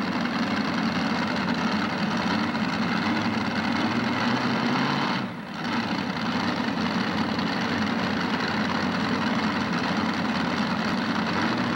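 Engines of a multi-engine modified pulling tractor idling at the end of a pull: a loud, steady, heavy running sound, with a brief drop in level about five seconds in.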